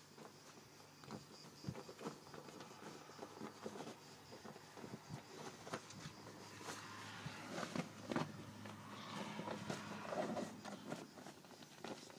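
English cocker spaniel pawing and turning in a padded fabric dog bed, trying to settle: irregular soft scuffs, scratches and rustles of the cushion, busiest in the second half.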